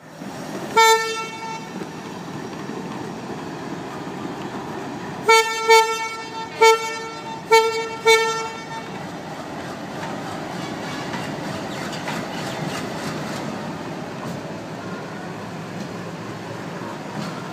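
Indian Railways electric locomotive horn: one short toot about a second in, then five short toots in quick succession between about five and nine seconds in, over the steady rumble of a train moving.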